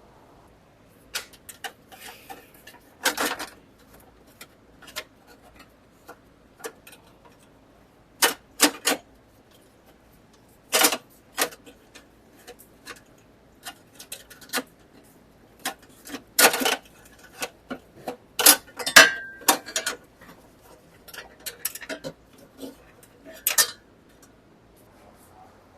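Irregular metallic clicks and clinks of hand tools and fasteners, as a small bracket is worked loose from inside a Porsche Boxster's door with the trim panel off. The clicks come singly and in short quick clusters, with a brief squeak about two-thirds of the way through.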